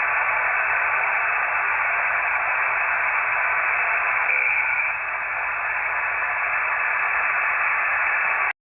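Radio receiver's speaker playing steady static hiss, with the sound narrowed by the receiver's audio passband. The sound cuts off suddenly near the end.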